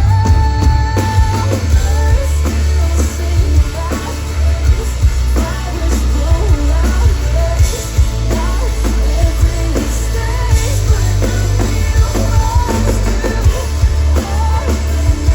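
Live pop-rock band playing loudly, with drums, heavy bass and singing.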